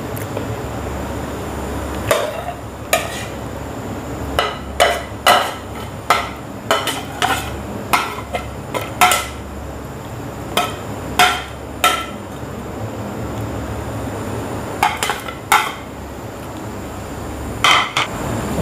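A spoon knocking and scraping against a serving plate and a metal cooking pot as chicken masala is spooned over boiled rice: irregular sharp clicks and taps, many of them from about two to twelve seconds in and a few more near the end. A steady low hum sounds underneath.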